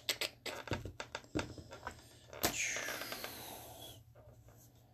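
Gloved hands handling trading cards and a plastic toploader on a play mat: a string of light clicks and taps, then about halfway through a sharp scrape with a high squeak that falls in pitch and fades.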